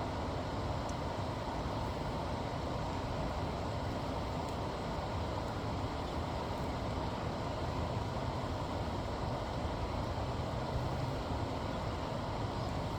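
Steady low rumbling outdoor background noise, even throughout, with no distinct calls or impacts.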